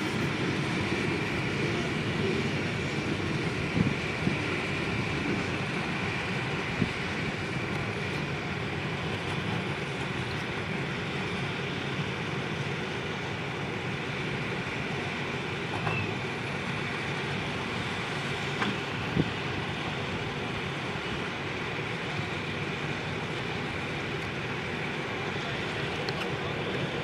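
CSX hopper cars of a freight train rolling past, a steady rumble of steel wheels on rail with a few sharp clacks along the way.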